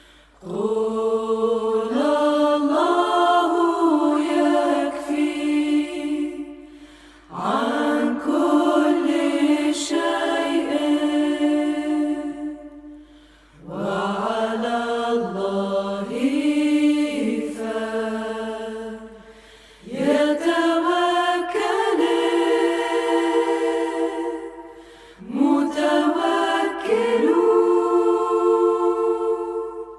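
Slow vocal music, sung like a chant in long held notes: five phrases, each starting suddenly and fading out after about five or six seconds.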